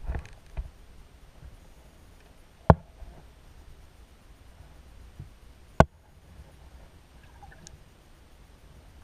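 Muffled underwater sound picked up by a submerged camera: a low, steady water rumble, broken by two sharp clicks about three seconds apart.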